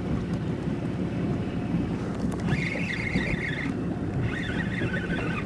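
Steady wind on the microphone and sea noise around a boat. From about two and a half seconds in, a fishing reel whirs in two spells of about a second each.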